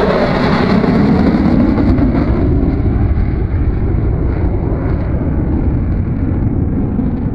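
Military fighter jets flying low overhead, loud continuous jet engine noise whose pitch drops during the first second as they pass. Wind buffets the microphone.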